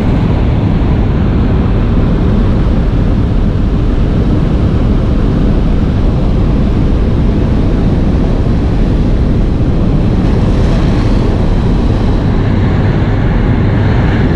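Loud, steady engine drone and wind rush inside a jump plane's cabin with the jump door open.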